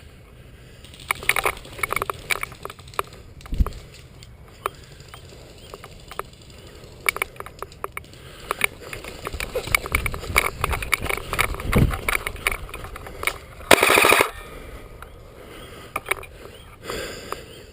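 Airsoft guns firing: scattered single shots and clicks, then a short rapid-fire burst about two-thirds of the way through, the loudest sound.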